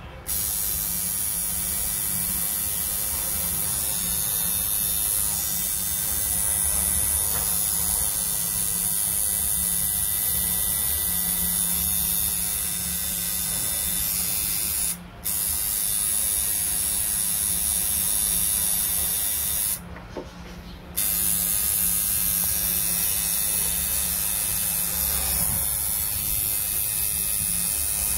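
Coil tattoo machine buzzing steadily as the needle works ink into skin. It cuts out briefly about halfway through and again for about a second a few seconds later.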